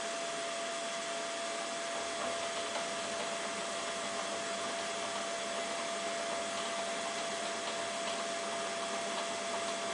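CNC milling machine running: a steady whooshing noise with a constant high whine, and a faint low rumble joining about two seconds in.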